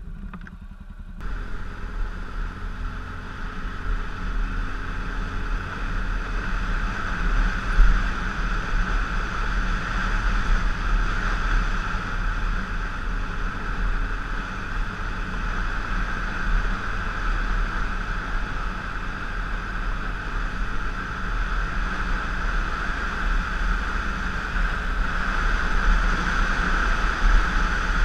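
Wind rushing over the microphone, mixed with the steady running of a BMW GS dual-sport motorcycle's engine as it rides along a gravel road; it begins about a second in.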